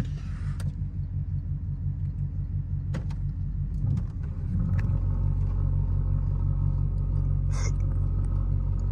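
A 5.3-litre LS V8's exhaust droning, heard from inside the car while driving. About four and a half seconds in it gets louder and settles into a steady drone: the exhaust tips vibrating where they sit close to the bottom of the rear fender.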